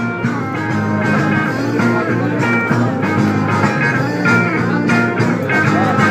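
Blues-rock music with guitar, playing steadily.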